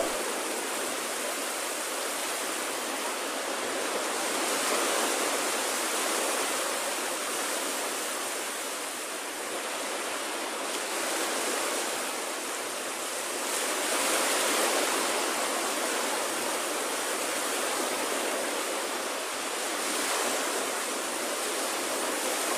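Small waves breaking and washing up a sandy beach: a steady rush of surf that swells and eases every several seconds.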